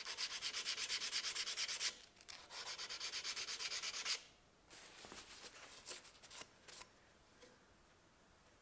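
Steel knife blade, forged from leaf spring, worked by hand with a file or abrasive in fast short back-and-forth strokes, about seven a second. There are two runs of about two seconds each with a brief pause between them, then softer, scattered strokes that stop a little before the end.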